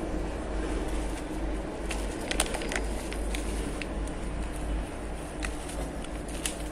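Plastic packet of grated coconut crinkling in short, scattered clicks as it is shaken over cake batter, over a steady low background hum.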